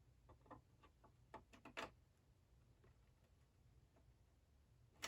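Faint small clicks and taps of puzzle box keys being handled and fitted into their slot, a quick cluster in the first two seconds and one sharper click at the end.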